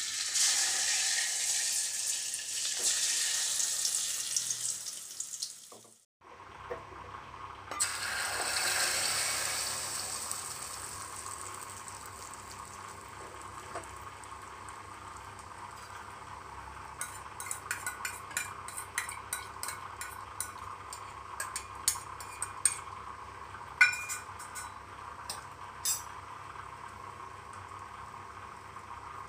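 Egg omelette batter sizzling loudly as it is poured into hot oil in an aluminium kadai. After a break, it sizzles loudly again as a batch goes into a small steel pan, then settles to a steady, quieter frying sizzle with scattered light clicks and taps.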